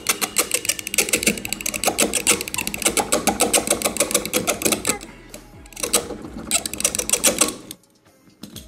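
Steel box-cutter blade scraped rapidly back and forth across the Samsung Galaxy M31's Corning Gorilla Glass 3 screen: a fast run of scratchy strokes, a brief pause about five seconds in, then more strokes that stop near the end. The blade skates over the glass without scratching it.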